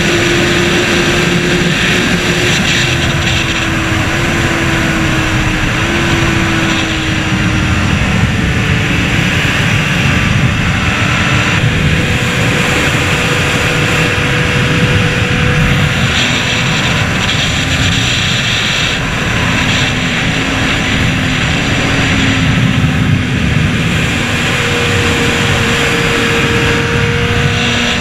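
Honda CBR600RR's inline-four engine running at speed under a steady, loud rush of wind, its pitch rising and falling with the throttle.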